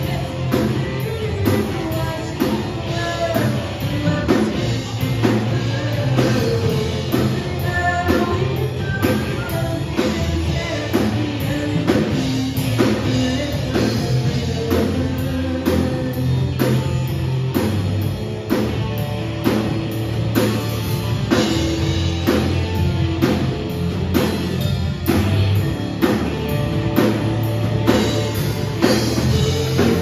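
Live rock band playing: drum kit keeping a steady beat, with electric guitar, bass guitar and a singer.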